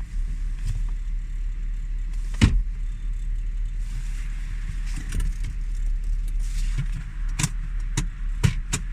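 Audi A6's 2.8 V6 engine (CHVA) idling steadily while still warming up from cold. Several sharp clicks and rattles come at uneven intervals, the loudest about two and a half seconds in, which the owner puts down to the handles rattling.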